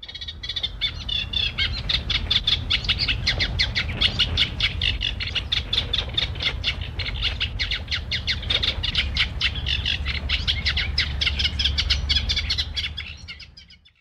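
Wing whistle of a flying common goldeneye: its flight feathers make a rapid, rhythmic whistling pulse with every wingbeat, a mechanical sound, not a call, and the typical sign of a goldeneye passing overhead. A low rumble lies underneath; the whistling fades in at the start and fades out near the end.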